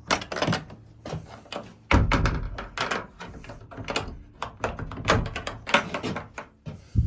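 Treehouse door being closed: a run of irregular knocks and thumps, the heaviest about two seconds in and again near the end.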